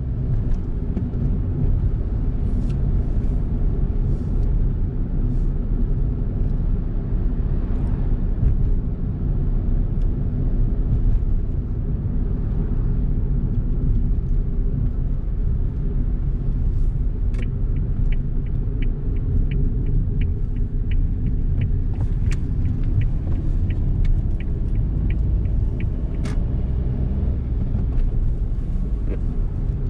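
Suzuki Hustler driving on a road, heard from inside the cabin: a steady low rumble of engine and tyre noise. From a little past halfway, a regular light ticking runs for several seconds, about three ticks a second.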